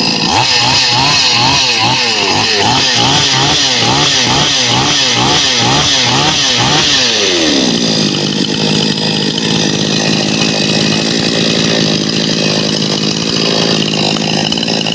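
Two-stroke chainsaw engine running with no bar or chain fitted. For about seven seconds it is revved up and down over and over, then the throttle is let go and it drops to a steady idle. It is running again after a faulty ignition coil was replaced.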